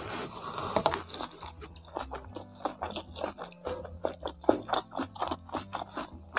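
Close-up mouth sounds of chewing crispy fried chicken (ayam kremes), with many crisp, irregular crunches. Background music with a low bass line plays under it.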